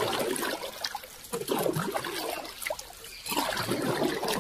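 Irregular water splashing and trickling as a hooked fish thrashes at the surface during the fight.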